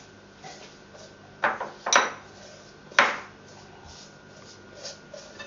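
A ceramic plate clinking, three sharp knocks with a short ring, as hands rub salt into a whole fish lying on it.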